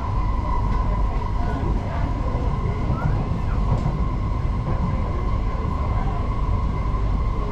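Interior noise of a Singapore MRT train running at steady speed: a continuous rumble of the wheels on the rails, with a steady high hum over it.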